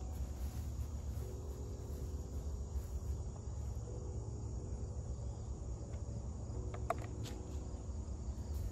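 A steady chorus of crickets over a low, steady rumble, with two short clicks about seven seconds in.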